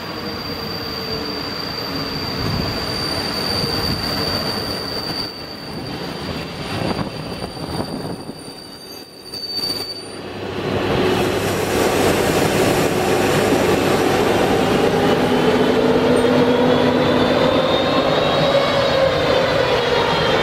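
Slovak class 263 electric locomotive with its passenger coaches: first rolling in with a steady high squeal of the wheels or brakes as it slows. After a break about ten seconds in, it is louder and close by, pulling away with a traction whine whose pitch rises slowly as it picks up speed.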